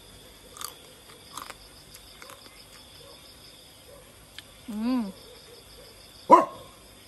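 A dog barks once, sharp and loud, near the end. A shorter rising-then-falling call comes about a second and a half before it.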